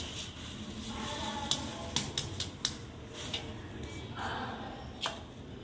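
Rangoli materials being handled over a steel plate: a quick run of light clicks and taps, a short rustle of paper about four seconds in, and one more click near the end.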